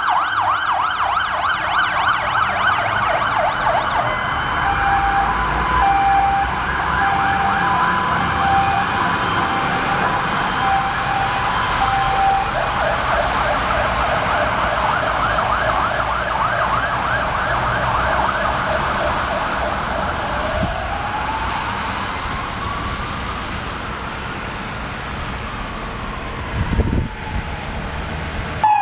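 Several fire engine sirens on an emergency run, fast yelping sirens overlapping one another. For several seconds a two-tone horn alternates high and low over them. Later a single siren wails slowly up and back down, and a low thump comes near the end.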